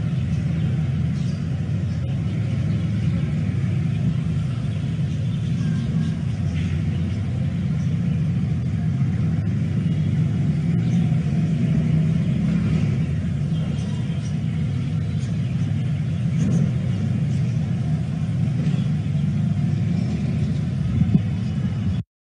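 A steady, loud low rumble with faint voices now and then, cutting off suddenly at the very end.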